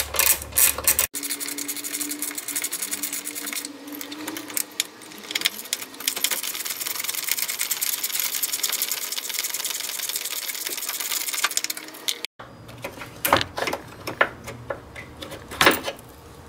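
Socket ratchet clicking on 8 mm bolts. Evenly spaced clicks at first, then fast continuous ratcheting for about ten seconds, then a few separate clicks and metal knocks near the end.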